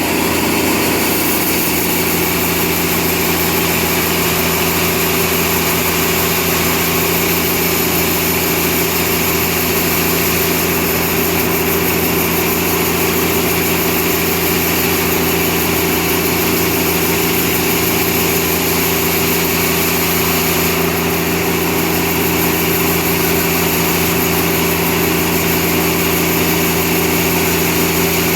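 Sawmill machinery running steadily with a constant hum and hiss that does not change.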